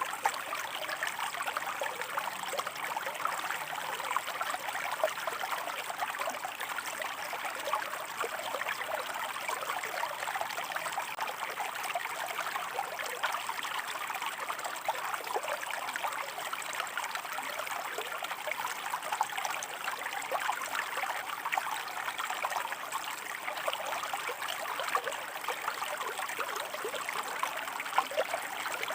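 Shallow stream of water running over rocks, a steady babbling and trickling with many small splashes and no pauses.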